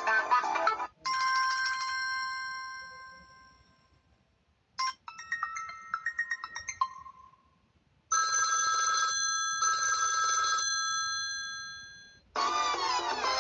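Samsung Galaxy Pocket stock notification and ringtones played one after another. A melodic tone ends just after the start. About a second in, a bell-like chime rings out and dies away over a few seconds. A short blip and a quick run of short notes follow, then two long ringing tones, the second fading out. Near the end a new melodic ringtone starts.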